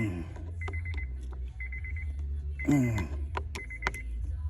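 A 2003 Honda Accord's warning chime beeping in the cabin, in short bursts of rapid high beeps about once a second, over a steady low hum.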